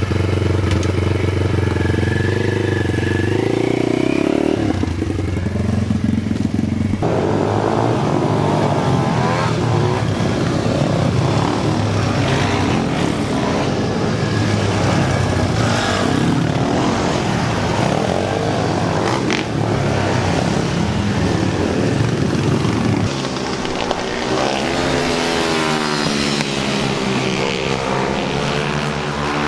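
Pit bike's single-cylinder four-stroke engine revving as the rider pulls away. About seven seconds in the sound changes to several pit bikes out on track, engines revving up and down through the gears and corners.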